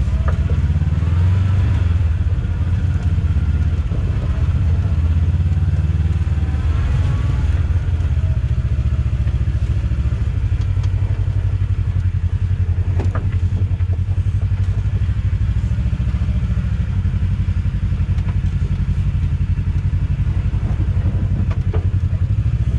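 Side-by-side UTV engine running steadily while the machine crawls down a rocky trail, with a couple of sharp knocks about halfway and near the end.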